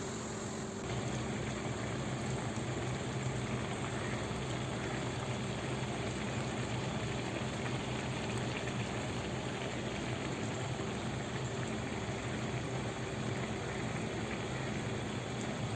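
Steady hiss of food cooking on a stovetop, with a faint low hum under it, growing a little louder about a second in.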